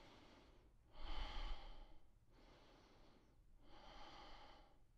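A man's faint, slow breathing: about two full in-and-out breaths, the loudest about a second in.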